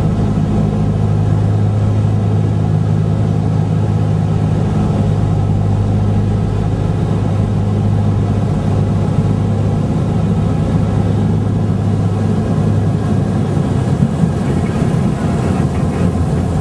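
Piston aircraft engines running with a steady, even drone, as vintage aircraft come in to land.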